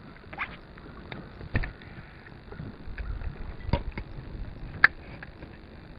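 Sounds of someone sitting in a kayak on the water: a few sharp knocks and taps against the kayak hull, the sharpest about five seconds in, over a faint steady hiss.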